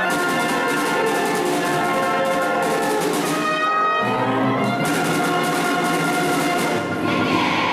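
School concert band of brass, woodwinds and timpani playing a loud passage. About four seconds in, it moves onto long sustained chords.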